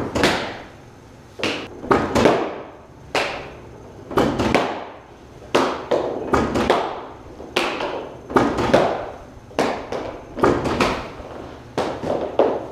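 Hockey pucks fired at a goalie, striking his leg pads, glove, blocker and stick and dropping onto synthetic ice: a run of sharp, hard strikes, often two close together, echoing off bare concrete walls.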